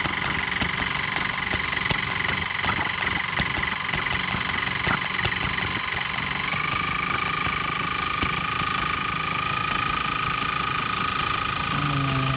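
Homemade LEGO two-stroke combustion engine running steadily, its firing heard as a rapid, even run of sharp ticks. A steady whine runs underneath and steps up in pitch about six and a half seconds in.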